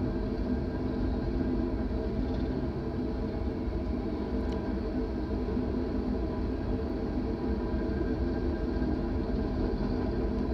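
A steady engine drone with a constant low hum, holding the same pitch without rising or falling.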